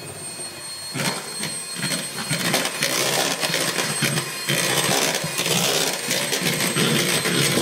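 Electric hand mixer beating egg whites with sugar in a bowl, its metal beaters running with a busy rattling and clattering against the bowl. It gets louder and denser about a second in. The whites are being whipped toward stiff meringue peaks.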